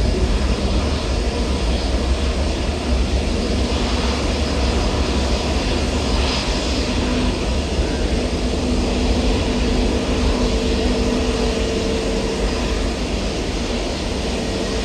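Airliner engines running: a steady low rumble and rush of noise with faint steady tones held over it.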